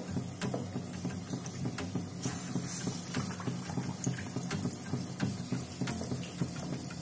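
Batter-coated potato vadas deep-frying in hot oil in a kadhai: a steady sizzle and bubbling with many small pops and crackles, as a second vada is slipped into the oil.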